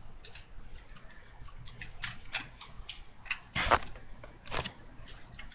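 Scattered light clicks and taps, with a louder knock a little past halfway and another about a second later.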